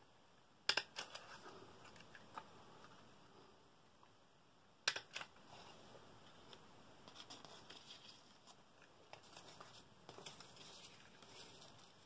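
Handheld plier-type stapler snapping shut through paper twice, about a second in and again near five seconds, each a sharp double click. Between and after, quieter rustling and tapping of paper pieces being handled.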